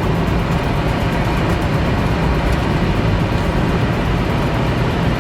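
Steady rush of tyre and wind noise from an electric car running flat out at around 200 mph, with no engine note.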